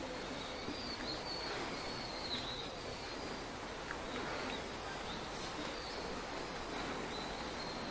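Forest ambience: a steady background hiss with faint, high, wavering bird calls coming and going several times.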